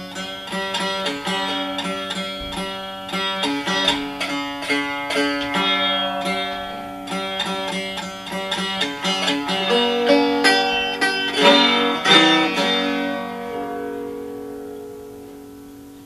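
A five-string banjo made from a maple syrup can plays a quick run of plucked notes. Its last notes ring and fade over the final few seconds.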